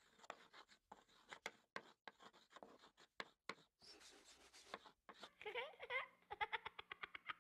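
Faint scratchy scribbling strokes, a crayon-drawing sound effect, for about five seconds, then a high-pitched baby's voice giggling and cooing in quick pulses until near the end.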